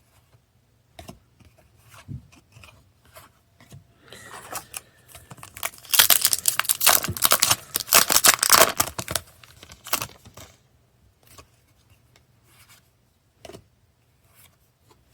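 Foil booster pack wrapper crinkling and tearing open, loudest in a dense crackly run from about six to ten seconds in, with scattered light handling clicks around it.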